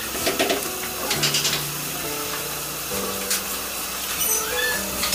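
Background music with slow held notes that change pitch about once a second, and a few light clicking taps.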